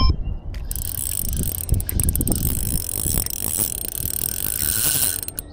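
Spinning reel being cranked steadily against a hooked shad, a continuous fine whirring ratchet of the reel's gears.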